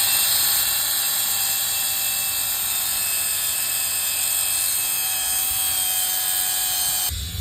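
A power tool running steadily, a loud, even, high-pitched whir that starts abruptly and cuts off about seven seconds in.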